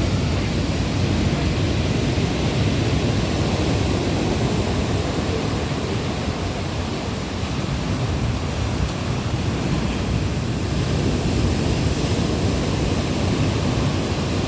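Sea surf washing on the shore: a steady rushing noise that swells and eases only slightly.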